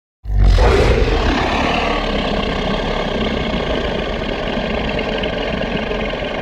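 Giganotosaurus sound effect: a long, deep, steady growl that starts suddenly and holds.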